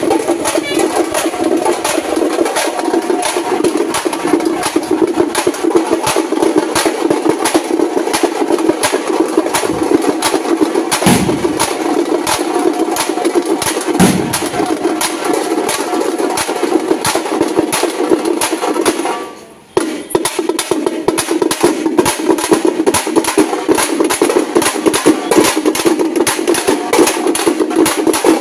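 A group of thappeta frame drums beaten with sticks, playing a loud, fast, steady beat. The drumming breaks off for a moment about two-thirds of the way through, then starts again.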